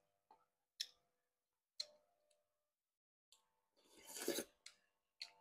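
Close-up eating sounds: a few short sharp clicks about a second apart, then a slurp of rice porridge off a metal spoon about four seconds in, the loudest sound, followed by two more clicks.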